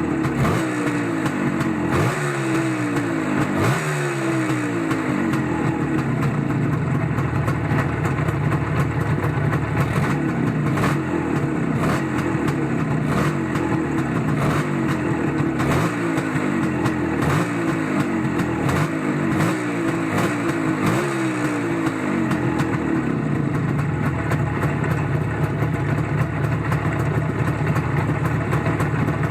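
Motorcycle engine running and being revved repeatedly, its pitch falling away after each rev, then running steadily for roughly the last third.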